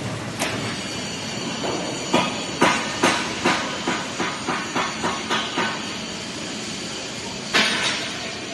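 Factory workshop noise: a steady hiss with a run of sharp knocks, about two a second for several seconds, then one more knock near the end.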